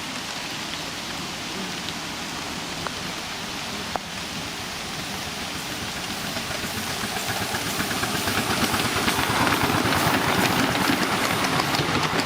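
Miniature railway train drawing closer, its running noise growing louder over the second half with a fast rattle, and a single sharp knock about 4 seconds in.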